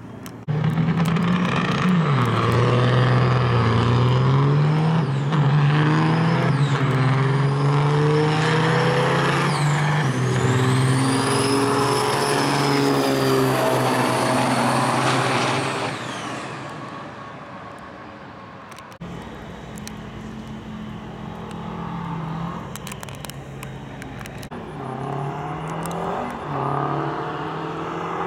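Big-rig diesel semi trucks launching off a drag-strip start line at full throttle. The deep engine note climbs and drops back with each gear change, a high whistle rises and falls over it, and the sound fades as the trucks run away. After an abrupt change, another semi's diesel runs steadily with a few short revs near the end.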